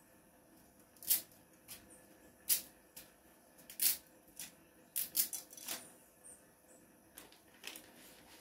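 About half a dozen sharp, crackly clicks, irregularly spaced, with a quick cluster about five seconds in, from dry pasta and its plastic packet being handled over a pot of hot water.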